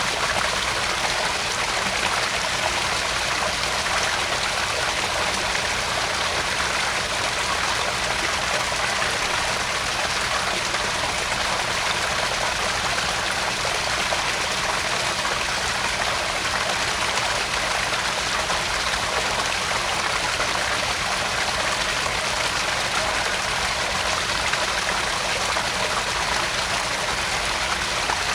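Small garden pond waterfall: water splashing and trickling steadily into the pond, an even, unbroken rush.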